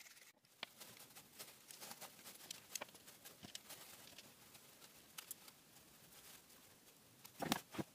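Faint, scattered clicks and taps of small 3D-printed plastic parts being handled and fitted together, with a louder cluster of clicks near the end.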